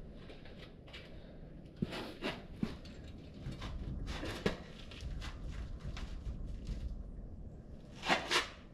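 Scattered light knocks and rubbing from metal parts being handled and rocked at the front axle's hub and steering knuckle, checking for play that the owner suspects is a loose ball joint. A louder cluster of knocks comes near the end.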